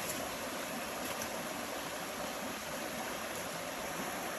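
Small river flowing: a steady, even rush of water.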